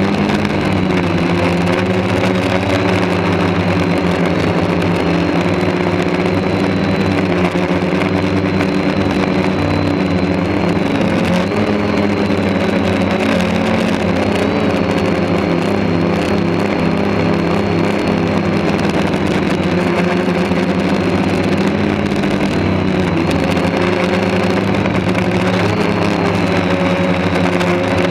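Quadcopter's electric motors and propellers humming steadily, heard from a camera mounted on the craft. Several pitches shift up and down a little as the motor speeds change, over a thin high whine.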